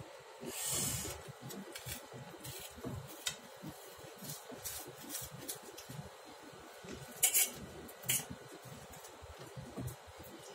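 Kitchen scissors cutting through a tawa-baked pizza on a steel plate: scattered snips and scrapes, with two louder clicks a little under a second apart about three quarters of the way through.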